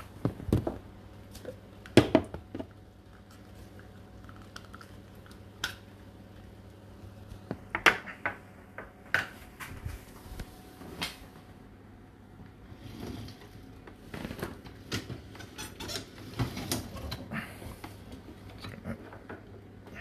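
Irregular clinks and knocks of dishes and wire racks in an opened dishwasher. The loudest knocks come about half a second in, at two seconds and near eight seconds, over a steady low hum.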